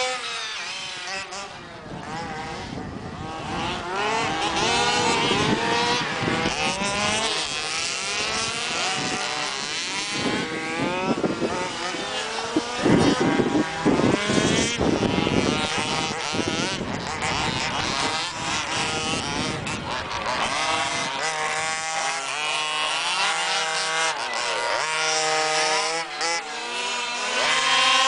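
Several large-scale petrol RC cars racing, their small two-stroke engines revving up and down in many overlapping whining pitches that rise and fall as they speed past. The pitches hold steadier toward the end.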